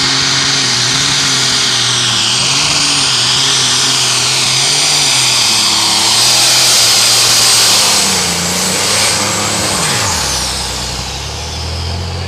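Turbocharged engine of a John Deere heavy super stock pulling tractor running at full throttle under load as it drags the sled, with a high steady whine over the engine note. About ten seconds in the engine is throttled back at the end of the pull, and the whine and engine note fall away.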